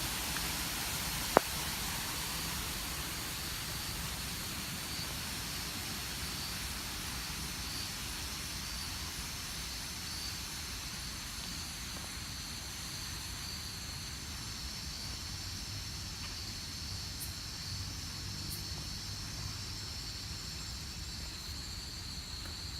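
Outdoor nature ambience: a steady high-pitched chorus of insects over a low rumbling hiss, with a single sharp click about a second and a half in.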